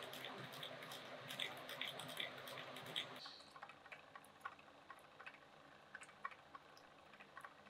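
Dense crackling and clicking over a hiss for about three seconds, then quieter, scattered sharp ticks and clicks while a magnetic stir plate spins a vortex in a beaker of water.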